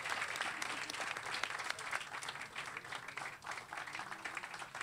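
Audience applauding, the clapping gradually thinning out and fading toward the end.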